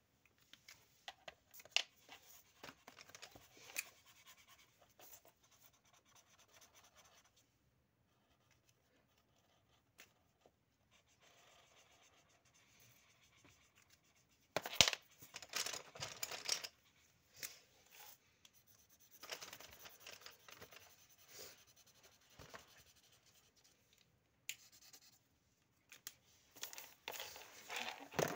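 Faint scratching of felt-tip marker pens on paper in short, irregular strokes, with pens and caps being handled. A louder cluster of scrapes and knocks comes about halfway through and again near the end.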